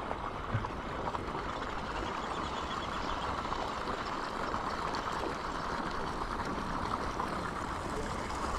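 Steady rushing noise with no distinct events, its level even throughout, and a couple of faint low knocks at the very start.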